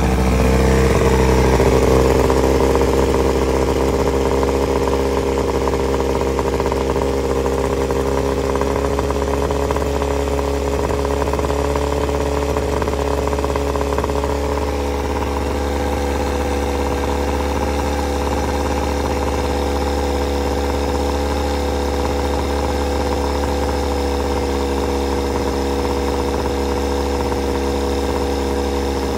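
1972 Evinrude Norseman two-stroke outboard motor running out of the water with its cover off, while its carburetor is being tuned. It runs faster and louder in the first few seconds, then settles to a steady, slightly lower idle from about halfway through.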